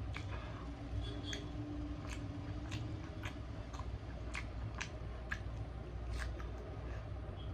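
A person chewing chicken and roti close to the microphone: wet mouth clicks and smacks, about two a second, over a steady low hum.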